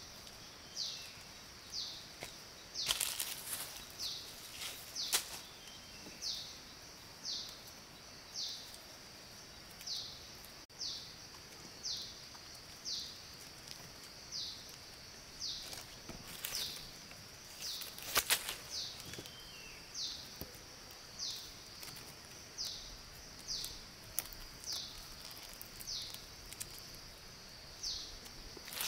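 Forest ambience: a steady high-pitched insect drone, with a short, high, falling call repeating about once a second. A few sharp knocks or cracks come in clusters about three, five, sixteen and eighteen seconds in.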